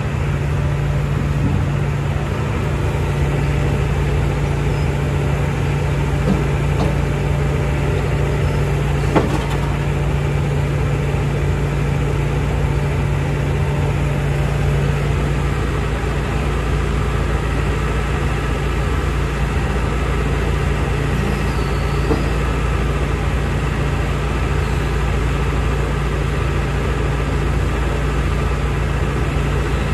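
Diesel engine of a 2018 Hitachi ZX170W wheeled excavator running steadily at an even pitch while the boom, arm and bucket are worked, with a faint knock about nine seconds in.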